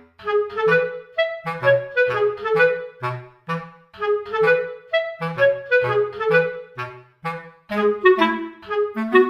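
Background music: a light, bouncy tune of short, separate notes, several a second, over a simple bass line.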